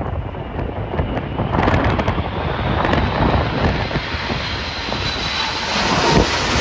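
Four-engined Airbus A380 on low final approach passing overhead, its jet engines running with a faint rising whine over a heavy rumble of storm wind buffeting the microphone. Near the end the engine sound swells as power is applied.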